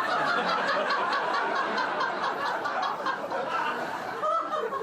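Crowd laughter sound effect: many people laughing together like a sitcom laugh track, at a fairly steady level.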